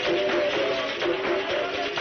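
Capoeira music: a berimbau plays a repeating rhythm of short twanging notes, about one every half second, over rattling percussion.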